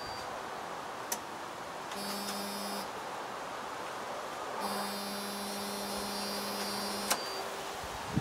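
Jeep Cherokee XJ electric fuel pump humming in short runs as the ignition is switched on, priming the fuel system to bring it up to pressure. A steady hum with a faint high whine: one brief run, then one of about two and a half seconds that stops with a sharp click.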